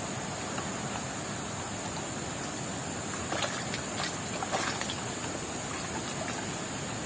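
Steady rush of shallow river water, with a few short sounds of someone wading and moving about near the middle.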